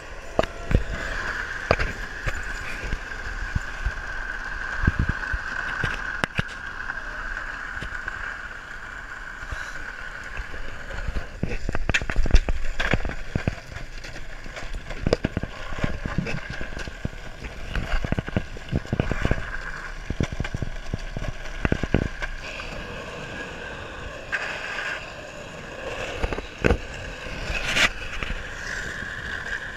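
Skateboard wheels rolling over pavement, a steady rumble broken by irregular sharp clacks as they cross cracks and seams.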